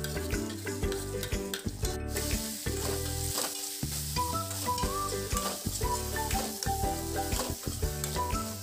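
Chopped banana being stirred with a metal spoon in a metal pan of hot ghee: the spoon clicks and scrapes against the pan over a light sizzle. Instrumental background music plays a melody throughout.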